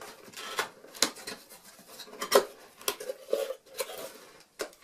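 A gift package being unwrapped and opened by hand: irregular crinkles, rustles and small knocks of wrapping and packaging.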